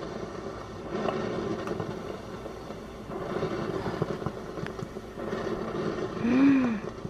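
Steamed milk pouring from a stainless steel frothing pitcher into coffee in a glass mug: a soft, steady pour.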